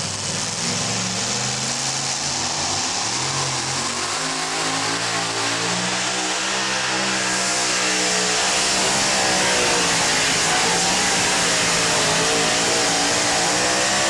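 Supercharged engine of a two-wheel-drive pulling truck at full throttle, dragging a weight-transfer sled. The engine note wavers up and down, then climbs steadily in pitch through the second half of the pull.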